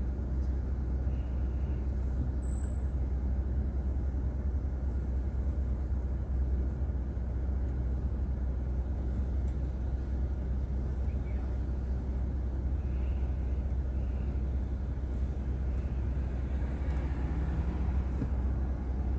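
Steady low rumble of a car's engine and tyres on the road, heard inside the cabin through a dashboard drive recorder.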